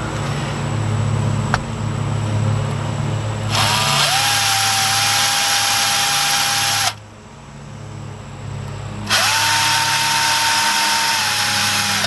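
Cordless drill boring holes into a wooden door frame: two runs of about three seconds each, the motor whine dipping slightly in pitch as each run starts, then holding steady until it stops sharply. Before the first run there is a low steady hum.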